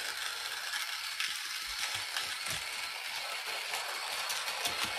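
Wirsh portable electric conical burr coffee grinder running steadily, grinding the last coffee beans left inside it, with faint crackling over the motor's hiss.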